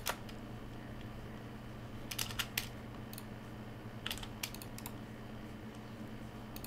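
Computer keyboard keys clicking as shortcut keys are pressed, in a few short scattered clusters, over a faint steady low hum.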